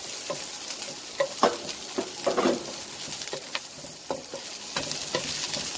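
Chopped onion and garlic sizzling in hot oil in a nonstick wok, stirred with a wooden spatula. Under the steady sizzle come scattered scrapes and taps of the spatula against the pan, the loudest a little after one and a half seconds and around two and a half seconds in.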